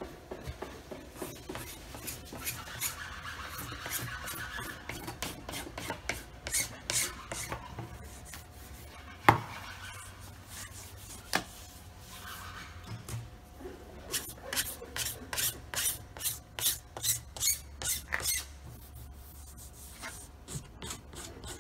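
Hand file rasping along the edge of glued-on edge banding to finish it flush by hand, in runs of quick strokes, about two to three a second. One sharp knock stands out about nine seconds in.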